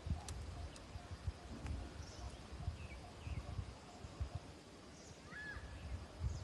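Outdoor countryside ambience: scattered bird chirps, with one clear arched chirp near the end, over an irregular low rumble and a few faint clicks.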